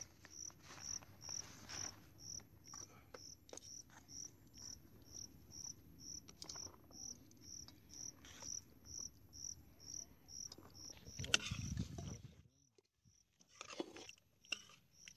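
An insect chirping steadily in short, high pulses about twice a second, over faint rustling and handling of lotus leaves and dishes. A louder burst of handling noise comes about eleven seconds in, and the chirping stops briefly just after.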